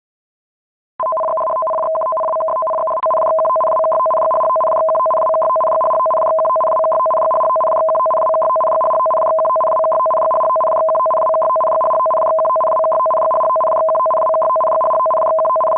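Japanese-style emergency warning broadcast signal: a loud electronic two-tone data signal rapidly switching between a lower and a higher pitch. It starts about a second in, gets a little louder about three seconds in, and runs on steadily as the alert ahead of a tsunami warning.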